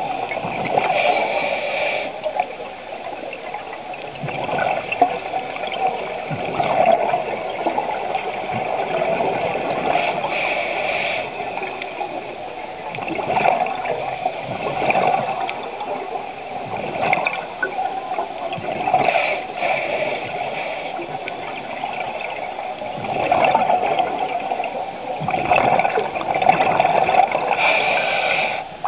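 Scuba regulator breathing underwater: exhaled air bubbling and gurgling, with a louder hissing rush of breath about every eight or nine seconds.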